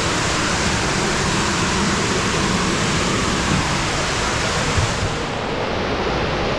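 Small cave waterfall pouring down over flowstone, a steady, loud rush of falling water. The highest part of the hiss drops away about five seconds in.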